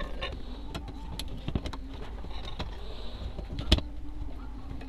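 Light clicks and taps of hands handling a set-top box's circuit board in its sheet-metal chassis, with one sharper click about three-quarters of the way through, over a faint steady hum.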